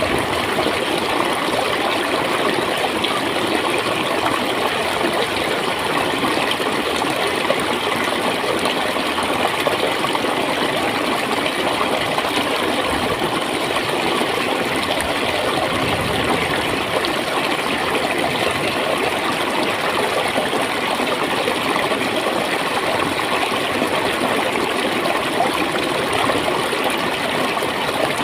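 Shallow stream of water flowing and gurgling at a steady, even level.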